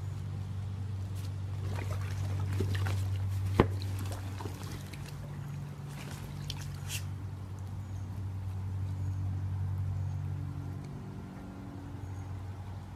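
Swimming-pool water splashing and trickling as a dog climbs into an inflatable kiddie pool floating on it, with scattered knocks and one sharp click about three and a half seconds in, over a steady low hum.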